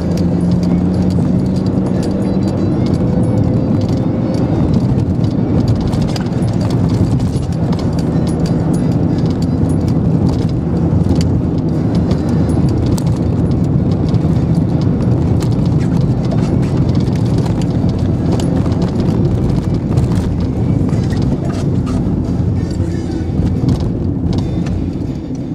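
Car cabin noise while driving: steady engine hum and tyre roar from the road, with the engine note rising a little in the first few seconds and small clicks and rattles throughout.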